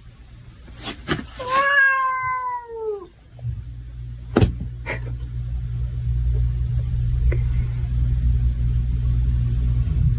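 A cat meows once, a long drawn-out meow that drops in pitch at the end. A few sharp clicks sound around it, the loudest a little after it, and then a steady low hum sets in.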